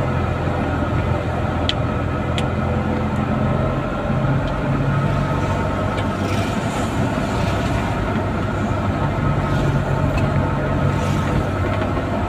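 A small vehicle's engine running under way with road noise, heard from inside the cab. The steady engine note shifts about four seconds in, and two brief sharp clicks come about two seconds in.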